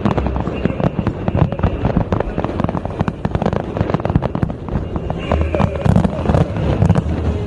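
Aerial fireworks bursting in quick succession: a dense stream of cracks and bangs, with heavier low booms a little past the middle.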